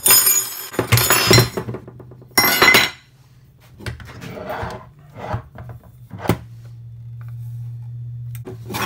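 Metal clanks and clatter of an old card-reader door lock, a steel lever handle and back plate, knocking against a pry bar and the hard floor as it is handled. There is a cluster of sharp knocks in the first three seconds and another single knock about six seconds in.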